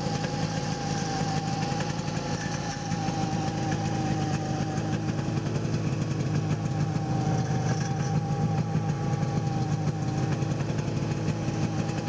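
1974 Arctic Cat Cheetah snowmobile's two-stroke engine idling steadily, close up with the hood open.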